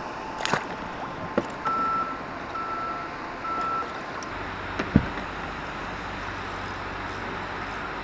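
Three short electronic beeps at one pitch, about a second apart, after a couple of light clicks. Then a steady low hum under a rushing noise, with one sharp knock about five seconds in.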